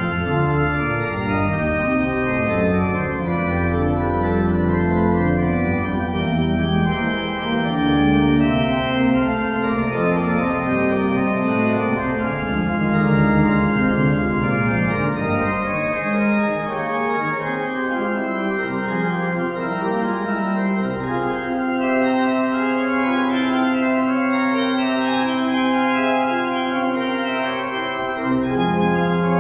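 Church pipe organ playing the closing voluntary: full sustained chords over deep pedal bass, with a long held note in the second half.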